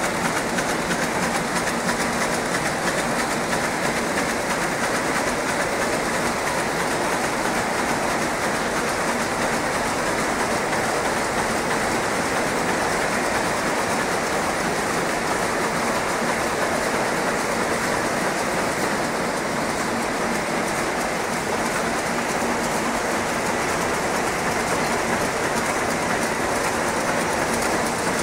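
Towel rapier looms running: a steady, dense, fast mechanical clatter with a faint steady hum underneath.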